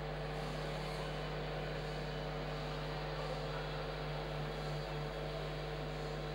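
Steady electrical mains hum under an even, low background noise of an ice arena, with no events standing out.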